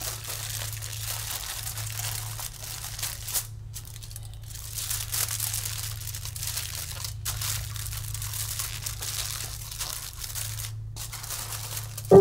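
Aluminium foil being crinkled and folded by hand, crackling on and off with a few short pauses, over a steady low hum.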